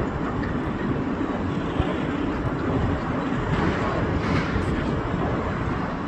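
Boeing 767 airliner's jet engines, a steady rumble and rush of jet noise, swelling slightly about halfway through.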